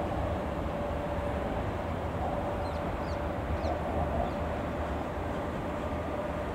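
DB Class 185 (Bombardier TRAXX) electric locomotive running past: a steady low rumble with a constant whine. A few short bird chirps sound about three seconds in.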